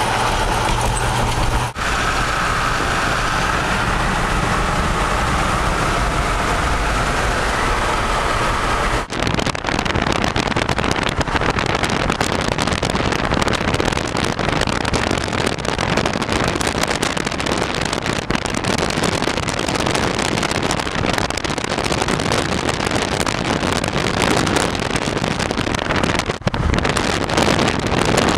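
Road noise from a moving vehicle: a steady engine and tyre hum for about nine seconds. After an abrupt break it gives way to an even, louder rushing noise, like air buffeting the microphone at driving speed.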